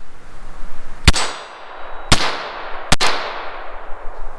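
Llama XV Especial .22 LR pistol firing three shots about a second apart, each crack ringing out briefly. The third shot has a second sharp crack right behind it.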